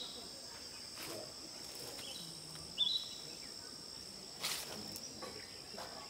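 A steady, high-pitched drone of insects in the vegetation. Short bird chirps come at the start and about three seconds in, and a brief rustle comes about four and a half seconds in.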